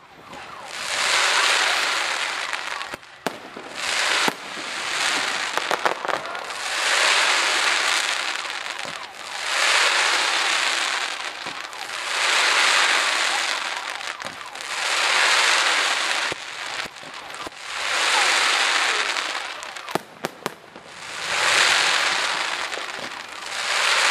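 Fireworks display: a run of crackling, sizzling aerial bursts, each swelling up and fading over about two seconds and following one another about every two and a half seconds, with a few sharp pops of shells breaking in between.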